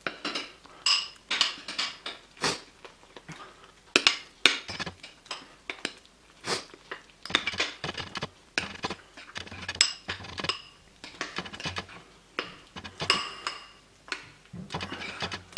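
Metal spoon stirring oats in a ceramic bowl: an irregular run of clinks and scrapes against the bowl's sides, about two a second, some ringing briefly.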